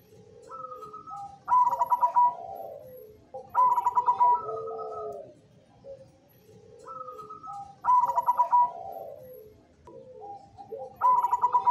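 Zebra dove (perkutut) cooing its song, the phrase repeating about every three and a half seconds: a short higher note, a quick stuttering run of notes, then lower drawn-out coos.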